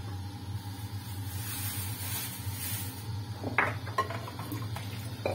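Kitchen tap water running into a sink basin, its hiss swelling around the middle. In the last couple of seconds a ceramic bowl clinks and knocks a few times against the sink as it is handled under the tap.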